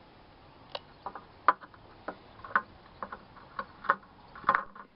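A string of sharp, irregular plastic clicks and ticks, about eight of them, as the screw top of a small bottle is undone by hand, ready for lighter fluid to be squirted in.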